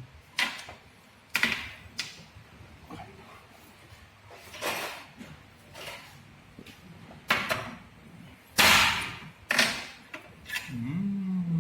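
Irregular sharp clicks and knocks, about nine in all, with one longer rasping scrape about three-quarters of the way through: small metal parts and tools being handled while a Bosch common rail diesel injector is taken apart.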